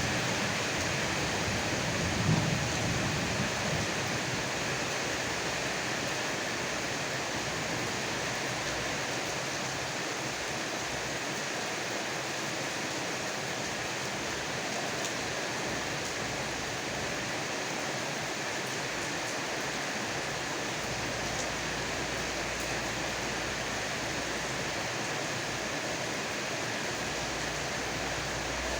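Heavy rain falling steadily as a dense, even hiss. A low thunder rumble swells about two seconds in, then dies away over the first few seconds.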